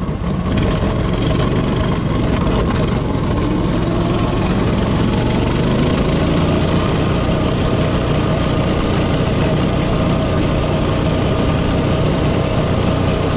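Coleman CT200U-EX minibike's 196cc single-cylinder engine running at full throttle on a top-speed run, its pitch holding steady; the engine is brand new and not yet broken in. Wind noise rushes over the microphone.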